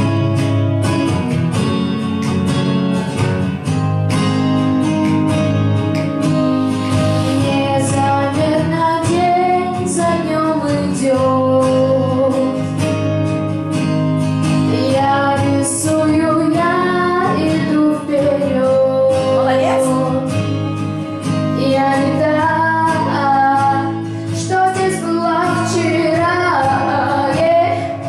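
A girl sings a pop song into a microphone over a recorded backing track with guitar and a steady beat. The track plays alone at first, and her voice comes in after several seconds.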